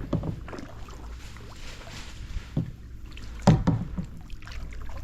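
Paddles working the water of a small paddled boat, with a steady low wash and a few short knocks against the hull, the loudest about three and a half seconds in.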